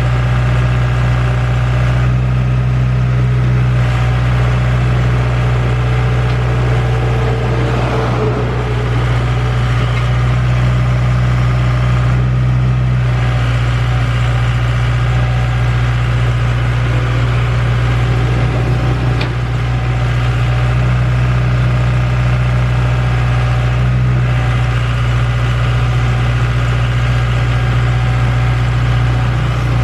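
Excavator's diesel engine running at a steady speed with a constant low hum, briefly joined by a noisier rush twice.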